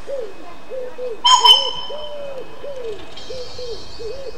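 A short, loud double toot on a steam locomotive's whistle, followed near the end by steady steam hissing from the cylinder drain cocks. Under it, a low cooing note repeats steadily, two or three times a second.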